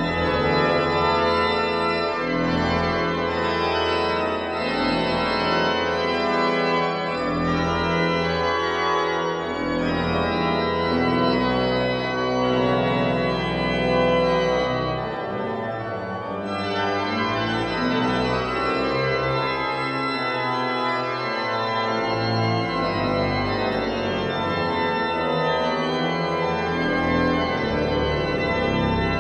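Church pipe organ playing a classical piece: dense sustained chords over a moving bass line, slightly softer about halfway through.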